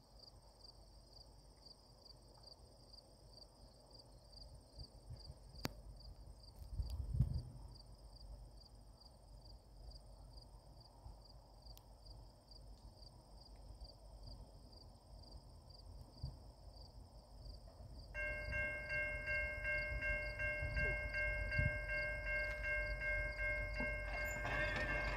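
A distant locomotive air horn, a Nathan K3L chime on a CN SD70I, starts suddenly about three quarters of the way in as the train approaches, and holds a steady chord to the end. Before it there are only crickets chirping in a steady pulse and low wind rumble, with one gust on the microphone about 7 seconds in.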